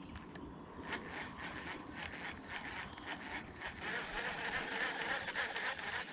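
Fishing reel being cranked to retrieve a topwater frog lure: the gears whir with many small irregular clicks, getting louder in the last couple of seconds.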